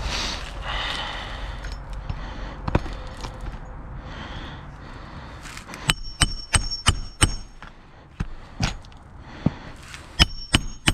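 Hammer strikes ringing on metal, as in roofing work: a quick run of five blows about halfway through, a few duller single knocks, and two more ringing blows near the end.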